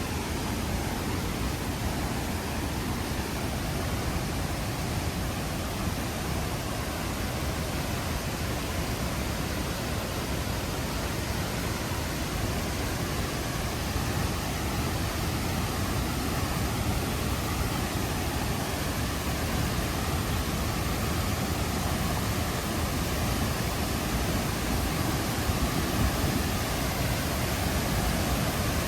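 Tegenungan Waterfall's falling water rushing, a steady, even noise with no breaks.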